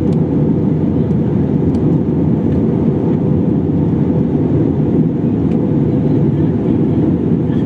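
Steady, deep rush of airliner cabin noise in flight: engine and airflow noise heard from a window seat.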